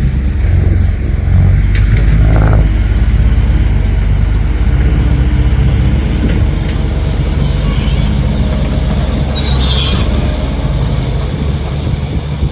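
Dump truck's diesel engine running steadily under load, with a brief hiss about nine to ten seconds in.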